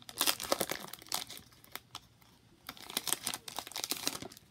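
Foil trading-card pack wrapper crinkling as it is torn open and handled, in two spells of crackling: one at the start and another about three seconds in.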